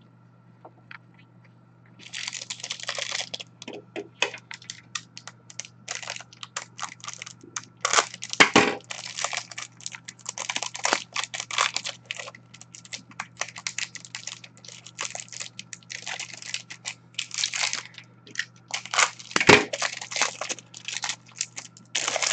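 Stiff plastic trading-card pack wrapper being crinkled and torn open: a dense, irregular run of crackles and snaps starting about two seconds in. A low steady hum runs underneath.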